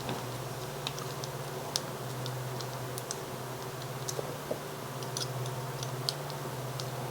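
Scattered light clicks and ticks of a small screwdriver and tiny #2-64 machine screws as a limit switch is fastened to a metal bracket, over a steady low hum.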